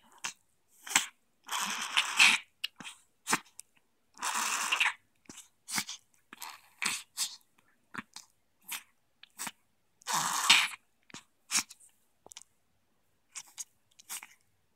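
A dog sneezing and snorting over and over, with three longer, louder sneezes among many short, sharp snorts and sniffs. She is trying to clear a piece of grass lodged in her nose or throat.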